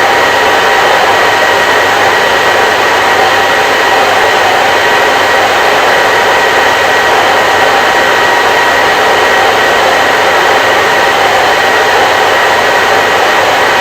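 Electric hair dryer running continuously at a steady speed: an even, loud rushing hiss of its fan and airflow, with a faint steady whine, no changes.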